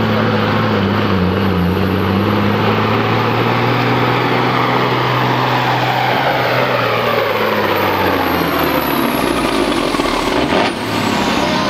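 Cabover semi truck's diesel engine under full load pulling a weight-transfer sled, a steady heavy drone. The revs fall away about nine seconds in as the truck comes off the throttle at the end of the pull.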